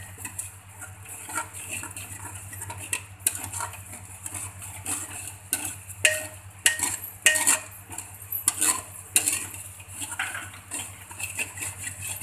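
A metal spoon scraping and clinking irregularly against a hammered metal pot as ginger-garlic-chilli paste is stirred constantly in ghee, with a faint sizzle of the paste frying underneath.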